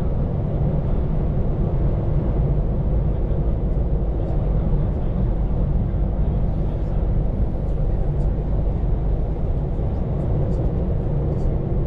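Scania P410 truck's diesel engine running steadily at cruise, a low drone with road and tyre noise, heard from inside the cab.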